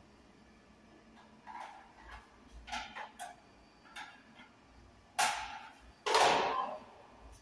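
Small plastic knocks, clicks and rustles from white access-point units and patch cables being handled and plugged in at a network rack. A run of short, light knocks is followed by two louder clatters about five and six seconds in, the second lasting over half a second.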